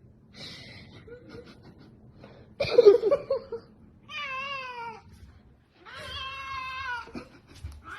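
A cat meowing several times. A loud, harsh call comes about three seconds in, then two drawn-out meows that fall in pitch, the second lasting about a second.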